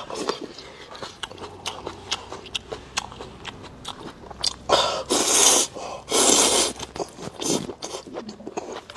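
Close-miked eating of spicy rice noodles: wet chewing with many sharp mouth clicks, and two loud drawn-in slurps about five and six seconds in.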